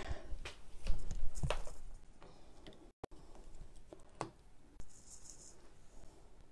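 Handling noise from a phone camera being moved and set in place: a run of knocks and rubbing against the microphone, loudest in the first two seconds, then a few lighter clicks. The sound cuts out for a moment about three seconds in.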